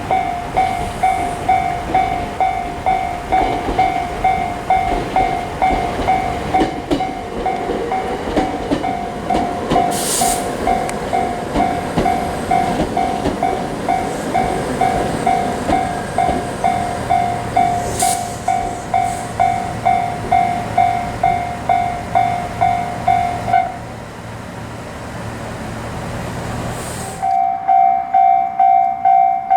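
Japanese railroad crossing warning bell ringing its repeated 'kan-kan' strokes, about one and a half a second, over the rumble of a passing train. The bell stops for about three seconds near the end, while a low steady hum from the train carries on, then starts ringing again.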